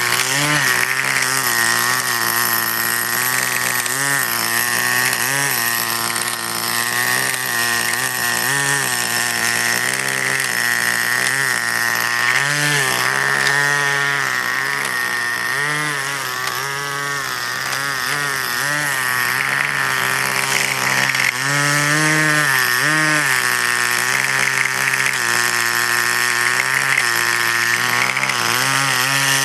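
Small two-stroke nitro glow engine of a 1/10-scale Kyosho QRC Wild Dodge Ram RC crawler running, its revs rising briefly again and again as the truck is driven, with a steady high whine alongside.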